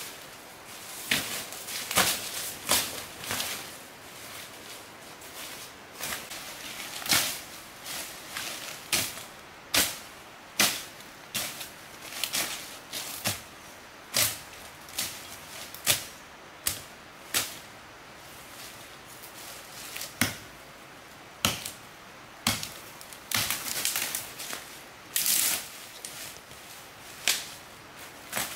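Dry leaf litter and twigs crunching and snapping underfoot and as brush is handled: a string of sharp, irregular cracks, mostly about a second apart, bunched closer together in places.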